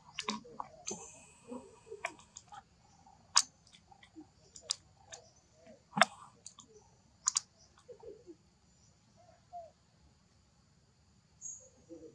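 A macaque chewing lotus seeds: sharp, irregular clicks and cracks, most of them in the first seven seconds, with a steady high hiss behind.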